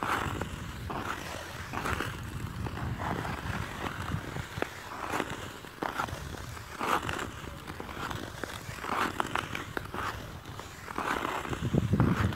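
Ice skate blades scraping and gliding over natural ice in a rhythm of strokes, a swish every second or two, over a low rumble that swells near the end.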